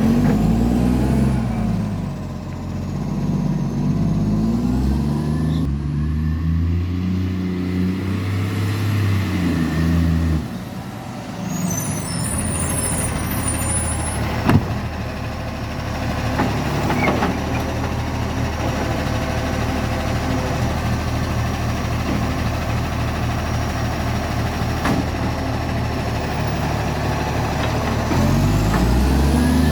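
Diesel garbage truck engine with a very bad exhaust leak, revving up and down for about ten seconds, then dropping to a steady lower run, with one sharp knock a few seconds later, before revving up again near the end.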